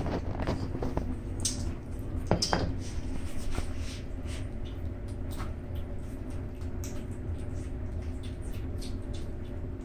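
Two young kittens eating wet food from bowls: irregular wet chewing, smacking and licking clicks, busiest in the first few seconds.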